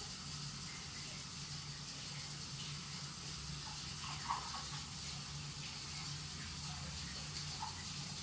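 A sleeping pet snoring softly: a steady, hissing breath sound with a low hum beneath it, and two faint clicks about four and seven seconds in.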